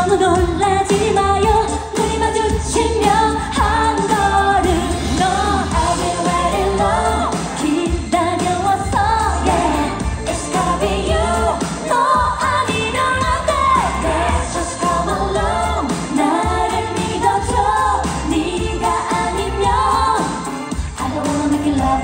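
Live pop concert sound: a woman singing into a handheld microphone over a loud backing track with a steady pulsing bass beat.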